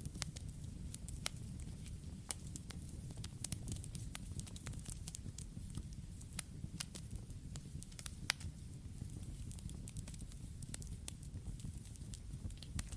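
Campfire burning: a steady low rumble of flames with many sharp, irregular pops and crackles of burning wood, one louder pop a little past eight seconds in.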